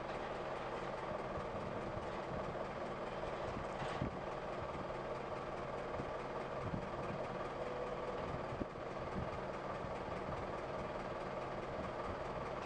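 Steady car engine and road noise with a low hum, and two faint knocks.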